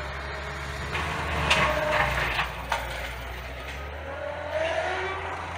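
Cat skid steer loader's diesel engine running steadily as the machine pushes into brush and small trees, with several sharp cracks and snaps of breaking wood about one to three seconds in.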